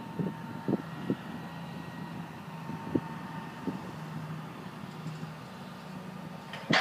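Hydraulic excavator engine running steadily while its bucket works at the base of a concrete silo, with several dull knocks in the first few seconds. A single loud, sharp bang comes near the end.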